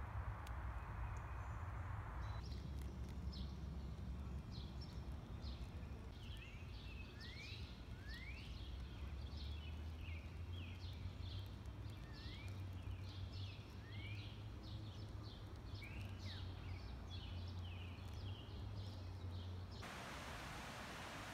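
Wild birds chirping and calling: many short chirps and quick rising notes, repeated, over a low steady rumble. Before the birdsong starts, a couple of seconds in, and again near the end there is only a plain outdoor hiss, with sudden changes between the two.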